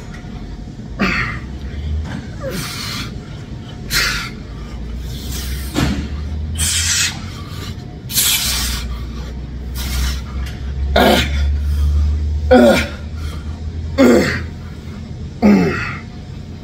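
A man breathing hard through a set of dumbbell front raises, with short forceful exhales and breaths every second or two, some dropping in pitch like grunts, over background music.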